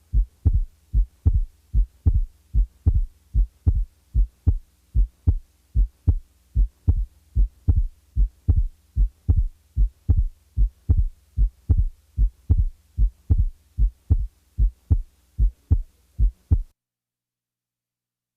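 Heart sounds in a steady lub-dub rhythm, the second sound widely split, as from delayed pulmonic valve closure; now and then the split is taken out, so the normal and abnormal second sounds can be compared. The beats stop shortly before the end.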